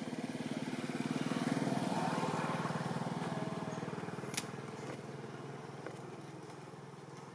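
A motor vehicle's engine running close by, a rapid even pulsing that swells over the first two seconds and then slowly fades as it passes. A single sharp click about four and a half seconds in.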